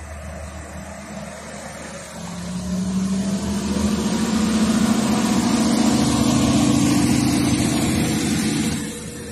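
Hellenic Train MAN diesel multiple unit passing close by: its diesel engine drones over the rumble of wheels on rail. The sound swells from about two seconds in, rising slowly in pitch, and drops off sharply near the end.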